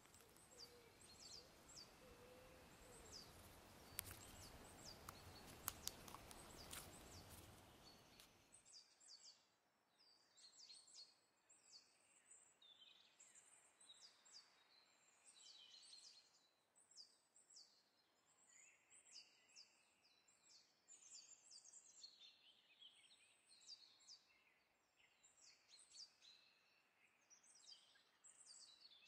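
Faint birdsong: many short, high chirps repeating throughout. For the first nine seconds there is a low hiss with a few sharp clicks, and it cuts off suddenly.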